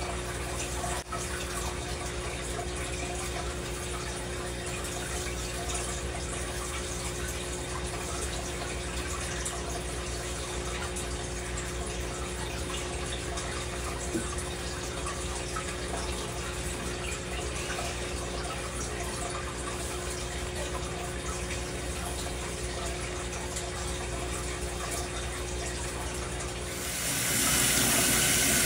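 Tap water running steadily into a stainless steel sink, the stream turning louder and brighter near the end.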